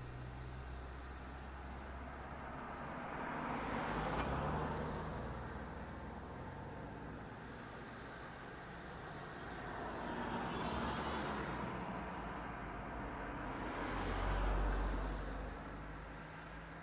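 Cars driving past one after another, three passes in all. Each pass swells up and then fades away, and the last one, about 14 seconds in, is the loudest.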